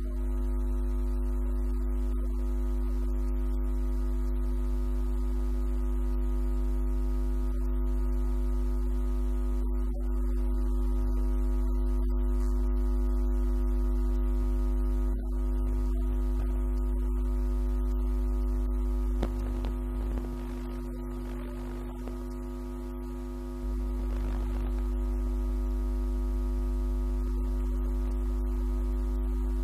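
A steady, unchanging drone of several held tones, low and hum-like, with a dip in level about twenty seconds in.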